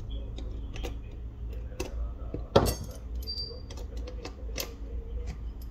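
Small repair tools clicking and tapping against the parts of a Huawei P40 Lite 5G being taken apart, with one louder knock about two and a half seconds in. A steady low hum runs underneath.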